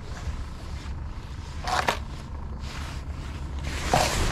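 Boat motor running steadily at slow trolling speed, with two short scrapes or knocks, about two seconds in and near the end.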